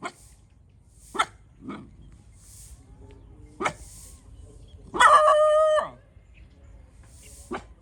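Dog barking in short single barks spaced one to two seconds apart, with a longer, louder held call about five seconds in.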